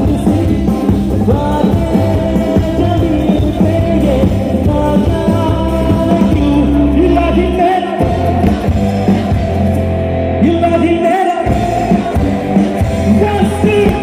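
Live band playing loud amplified music through a PA, with a male singer singing over heavy bass and drums; the bass drops out for a moment twice, about eight and eleven seconds in.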